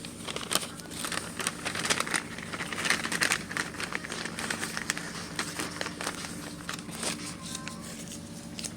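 A homemade blind bag being handled and opened, crinkling in quick irregular bursts. The crinkling is busiest in the first half and thins out after about five seconds.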